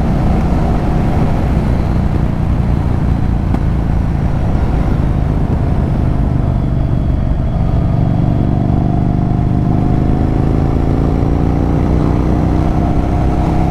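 Yamaha Virago 1100's air-cooled V-twin engine and exhaust under way, running steadily, then climbing in pitch from about eight seconds in as the revs rise.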